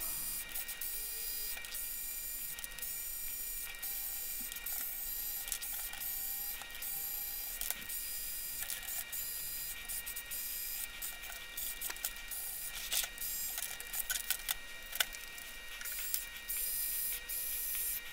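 Bosch cordless electric screwdriver whirring in short bursts, one after another, as it unscrews spoke nipples from a bicycle wheel's rim, with occasional small clicks.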